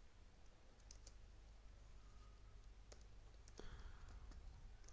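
Near silence with a few faint, sharp clicks from a computer keyboard and mouse, spread out over the few seconds.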